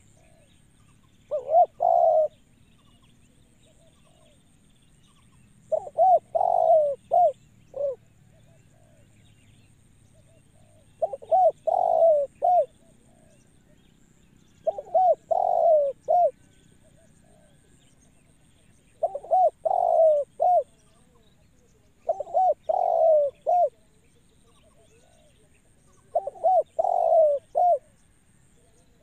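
Spotted dove (tekukur) cooing: seven short phrases of a few coos each, repeated every three to four seconds.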